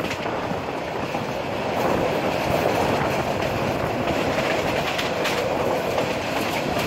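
Train running at speed, heard at an open carriage window: a steady rush of wheels on rails and wind, with a few sharp clicks of the wheels over rail joints.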